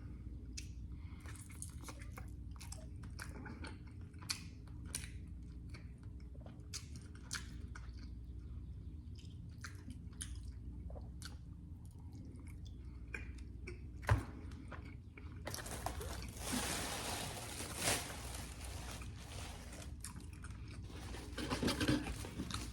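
Close-up chewing of boneless chicken wings dipped in ranch: many small wet mouth clicks and smacks over a steady low hum. One sharper click comes a little past halfway, and a broad hissing noise joins for the last several seconds.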